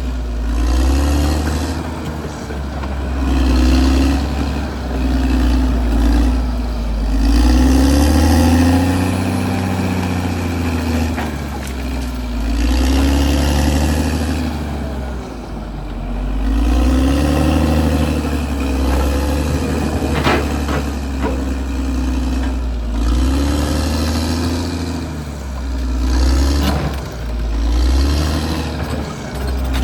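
Caterpillar D6R XL bulldozer's diesel engine working, its pitch rising and falling every two seconds or so as the load comes and goes. There is a single sharp clank about twenty seconds in.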